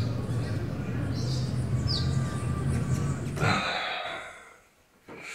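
Small birds chirping: a few short, high, falling chirps over a steady low hum. About three and a half seconds in there is a brief rush of noise, and the hum stops.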